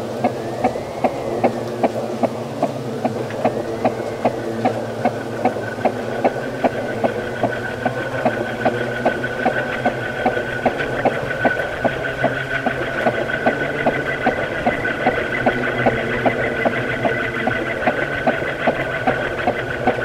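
Ceiling fan running: a steady hum of several tones with a sharp regular tick about two or three times a second. A higher whistle swoops up and down over the first few seconds, then holds steady.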